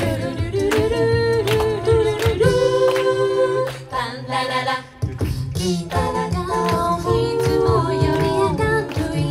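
A mixed a cappella group singing a pop song live in close harmony: women's voices on top, a low sung bass line beneath, over a steady beat. The sound dips briefly about halfway.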